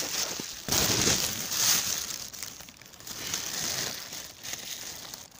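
Crinkly rustling and crunching close to the microphone in a few uneven bursts, the loudest about a second in: handling noise as the phone is moved about over snow and a hand holding a small fish.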